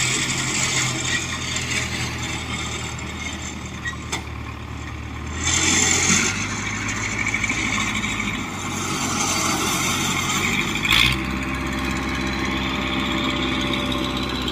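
Engine of a tracked rice-hauling carrier running under load as the machine crawls up a riverbank. The engine note changes about five and a half seconds in and again about eleven seconds in.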